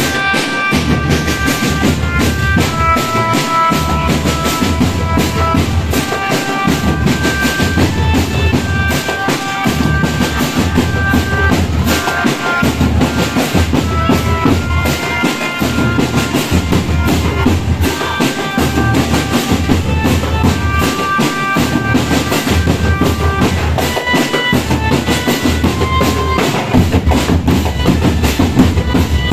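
Marching drumband playing: bass drums and snare drums beat continuously, with a melody of short, high held notes over them.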